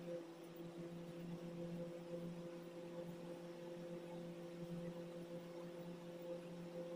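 A faint, steady hum of several held low tones, unchanging throughout.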